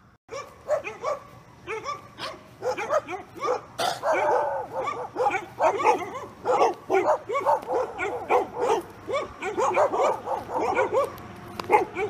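A dog barking over and over in short, high yaps, several a second.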